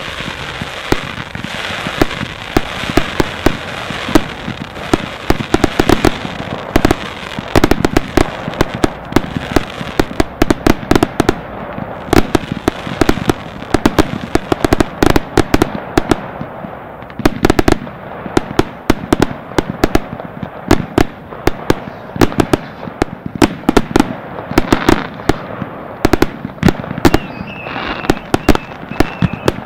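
Ground-launched firework batteries firing in quick succession: a steady hiss with rapid shots and crackles, several a second. Near the end a wavering high whistle joins in.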